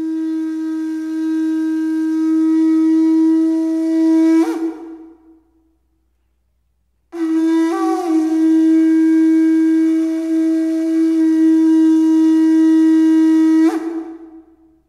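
Music soundtrack: a horn-like wind instrument sounding two long held notes at the same pitch, each ending in a sharp upward slide, with about a second and a half of silence between them.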